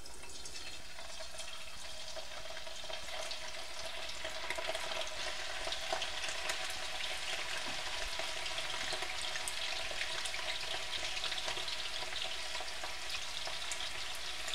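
Egg-and-cornflour-coated beef strips sizzling and crackling as they fry in hot oil, the sizzle growing a little louder after a few seconds.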